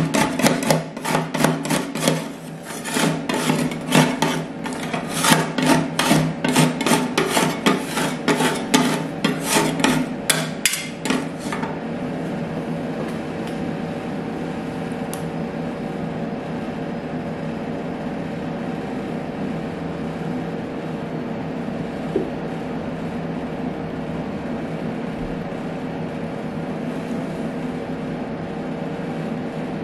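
Two steel spatulas chopping and scraping avocado on the frozen steel plate of a rolled ice cream machine: rapid clattering metal strikes that stop after about eleven seconds. A steady hum from the machine's refrigeration compressor runs underneath and continues alone afterwards.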